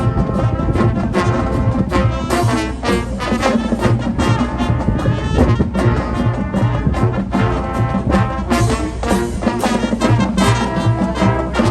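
High school marching band playing its competition show: brass with drumline percussion keeping a steady beat.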